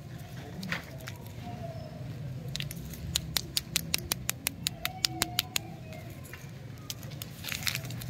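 Wrapped stick lollipops being handled: a rapid, even run of sharp clicks, about six a second, for about three seconds, then a short crinkle of the plastic wrappers near the end as they are gathered up. A steady low hum runs underneath.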